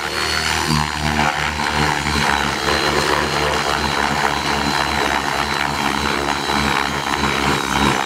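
Radio-controlled helicopter in aerobatic flight: a steady high whine over a fluttering, chopping low sound from the rotor blades.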